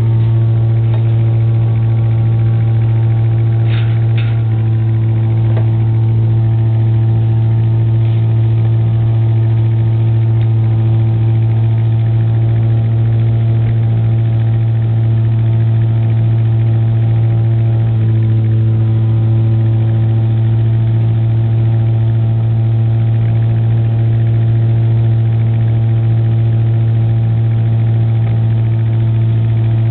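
The 30 hp four-cylinder Wisconsin engine of a Giant Vac towable leaf loader running at a constant speed, turning the vacuum fan, with a strong steady low drone. A couple of brief clicks about four seconds in.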